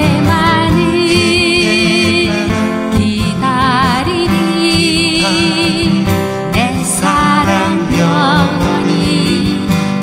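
Two acoustic guitars played together while a singer sings a slow ballad with vibrato on the held notes.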